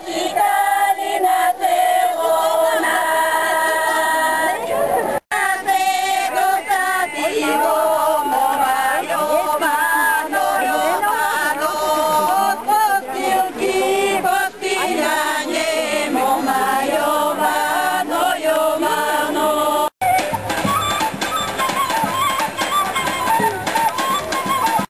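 Bulgarian women's folk group singing together in several parts. After a cut about five seconds in, more group singing goes on; near the end it switches to instrumental folk dance music.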